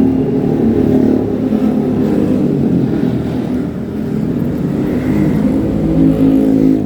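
Yamaha MT15's 155 cc single-cylinder engine running under way, its pitch shifting up and down with the throttle.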